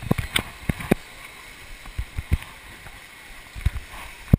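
Water and hands knocking against a GoPro camera's waterproof housing in a churning water-park pool: a series of irregular dull thumps over a steady rush of water, the loudest near the end.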